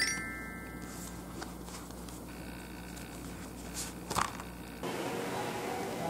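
Pages of a paperback cookbook being handled and flipped: a few soft rustles, then a louder riffle of pages about four seconds in. A chime rings out at the start, and light background music begins near the end.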